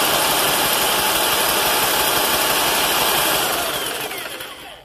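Cordless drill spinning a GX200-clone single-cylinder engine with a 3D-printed PLA flywheel over at speed, a steady whirring churn; it slows and fades out near the end. The engine turns over without firing: no spark, which the owner puts down to a junk flywheel magnet or a dead coil.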